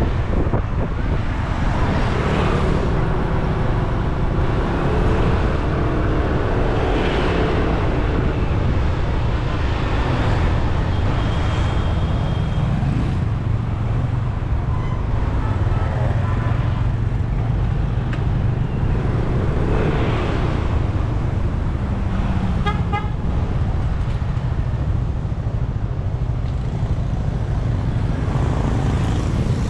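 Scooter riding along a road: a steady engine hum under road and traffic noise. A quick string of short horn beeps comes about two-thirds of the way through.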